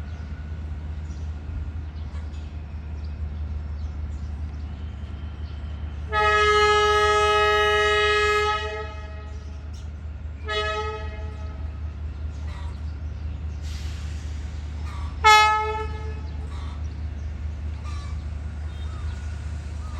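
Train horn sounding three times over the steady low rumble of a diesel locomotive: one long blast of about two and a half seconds, then two short blasts, the last one sharp and loudest.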